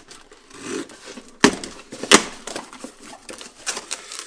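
Cardboard parcel being opened: a utility knife slitting the packing tape and the box flaps pulled open, with rustling and scraping and two sharp cracks about a second and a half and two seconds in.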